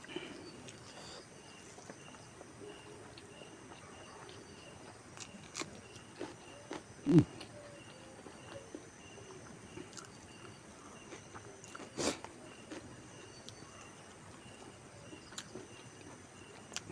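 Quiet rural background with a faint high chirp repeating about twice a second, scattered small clicks and knocks, and one louder knock about seven seconds in.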